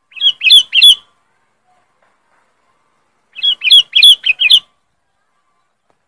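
Sooty-headed bulbul (kutilang) calling loud and sharp: a quick run of three or four short whistled notes at the start, then a longer run of about six notes some three seconds later.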